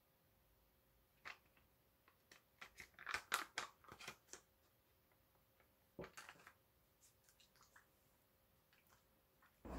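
Foil sheet-mask pouch crinkling as it is handled: a run of sharp crackles and rustles for a few seconds, then one shorter crinkle about six seconds in.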